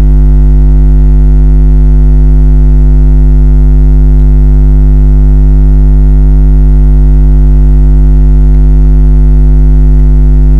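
Loud, steady electrical mains hum: a low buzz with a ladder of overtones that does not change at all.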